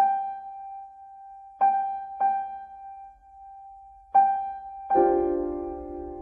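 Background piano music: a single high note struck four times and left to ring, then fuller chords coming in near the end.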